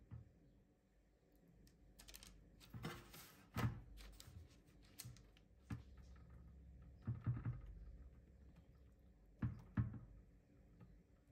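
Quiet kitchen handling noises as bread slices are laid on a parchment-lined baking tray and brushed with melted butter using a silicone pastry brush. There are scattered soft taps and clicks, with a short rustle about three seconds in.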